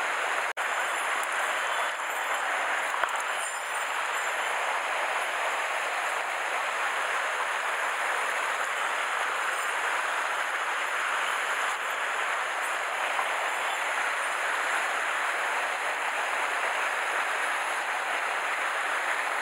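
Small mountain stream rushing over rocks in a shallow riffle, a steady, even rush of water. One brief click about half a second in.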